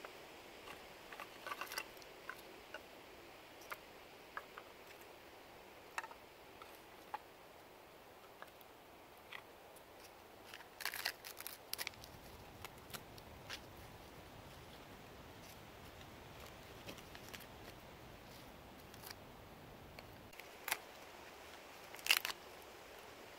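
Split wood sticks clicking and knocking together as they are laid into a stone fire ring, with crinkling of birch bark. Sparse faint clicks, with a louder cluster about eleven seconds in and another near the end.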